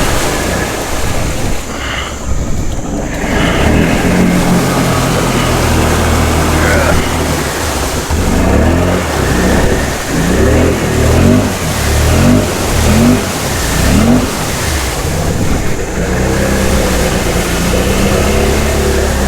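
Can-Am Outlander 650 XMR ATV's V-twin engine running hard while the machine churns through deep mud and water, with splashing. In the second half the engine revs up again and again, about six quick rises in a row.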